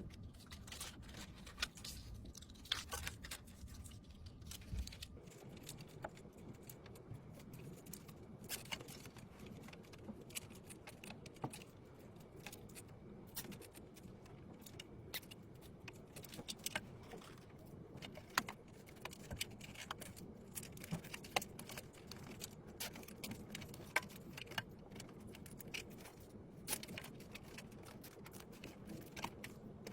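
Faint, irregular light clicks, taps and small rattles of hard parts being handled while a desktop PC is put together.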